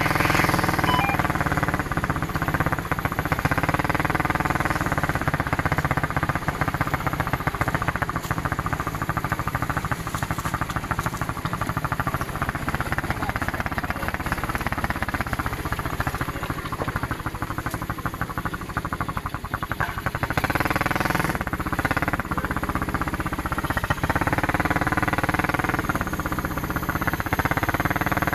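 ATV engine running under load off-road, revving up and down again and again as the throttle opens and closes.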